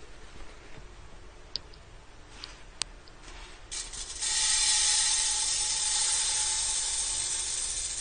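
Dry sticky (glutinous) rice being poured into an empty metal wok, the grains pattering against the pan in a steady hiss that starts about halfway in, with a faint ringing tone from the wok. A few light clicks come before it.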